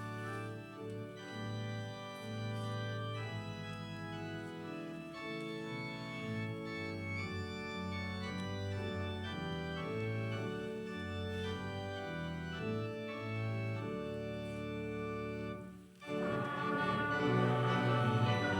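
Organ playing a hymn in sustained chords. It breaks off briefly near the end and comes back louder and fuller.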